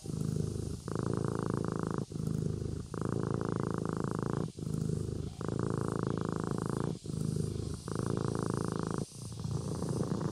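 Kitten purring steadily, the purr swelling and easing with each breath in and out, about four breaths over the stretch.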